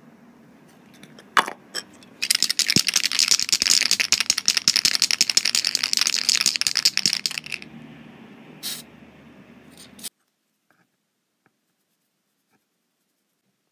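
Tamiya TS-32 Haze Grey aerosol spray can being shaken hard, its mixing ball rattling rapidly inside for about five seconds, with a few single knocks before and after. The sound cuts off suddenly near the end.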